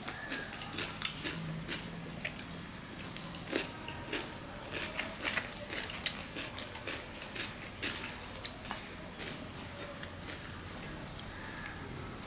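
Close-up mouth sounds of eating: chewing and crisp crunching of raw cucumber, a quick run of sharp crunches in the first half that thins out toward the end.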